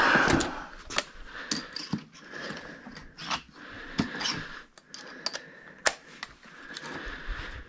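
Metal hand tools clinking and clattering as someone rummages through a soft-sided tool bag: scattered sharp clicks and knocks, a few louder than the rest, with rustling between them.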